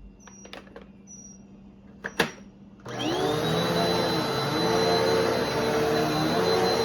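Bissell PowerForce Helix Turbo Rewind Pet upright vacuum: a few light clicks and a sharp click about two seconds in, then just under three seconds in the motor starts, spins up and settles into a steady run with a high whine.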